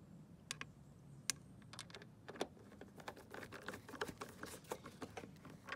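Small, irregular clicks and ticks from a hand screwdriver with a T30 Torx bit turning a screw into the roof rack's metal side rail, sparse at first and coming faster in the second half.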